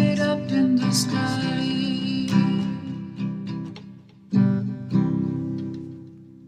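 Acoustic guitar ending a song: strummed chords, with two last strums about four and five seconds in that ring out and fade away near the end.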